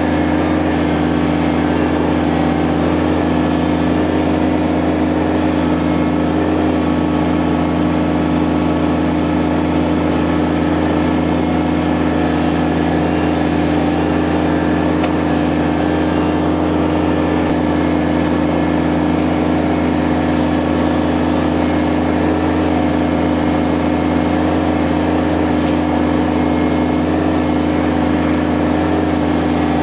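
Kubota BX23S compact tractor's three-cylinder diesel engine running at a steady, unchanging speed while the front loader and grapple work brush.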